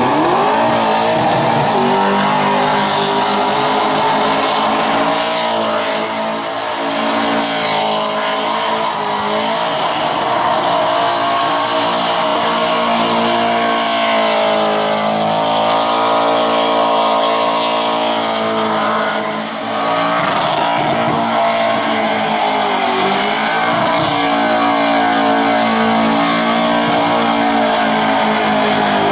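Supercharged car engine held at high revs through a burnout, its rear tyres spinning and squealing on the pad. The revs dip briefly about six seconds in and again near twenty seconds, then climb straight back.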